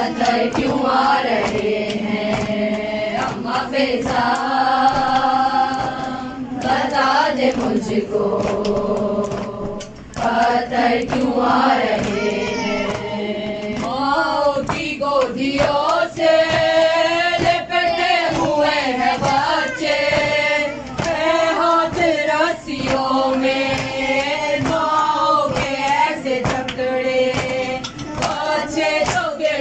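Women reciting a noha, a Shia Muharram lament, chanted in chorus in long held sung lines. Under the voices runs a steady beat of strikes, the chest-beating (matam) that accompanies noha.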